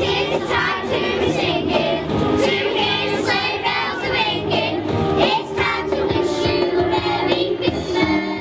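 Music with several voices singing together, a choir-like song over a steady accompaniment.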